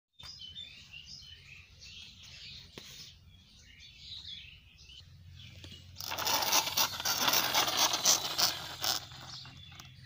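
Small birds chirping in the background for about six seconds, then a loud rustling, scuffing noise for about three seconds as the camera moves across the dirt, before the birds return faintly.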